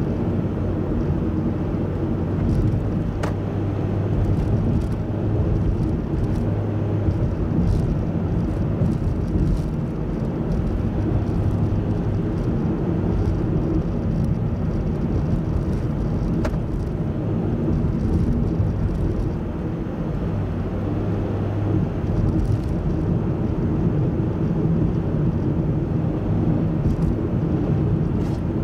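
Car driving at a steady pace, with engine hum and tyre and road rumble heard from inside the cabin; the low hum swells and eases slightly now and then.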